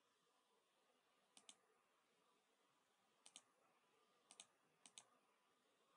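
A computer mouse button clicked four times, spaced unevenly; each click is a quick pair of faint ticks as the button is pressed and released.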